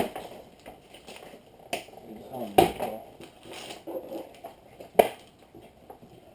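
Handling of a plastic toy or its packaging: scattered rustle with three sharp clacks, the loudest about two and a half seconds in and another near five seconds.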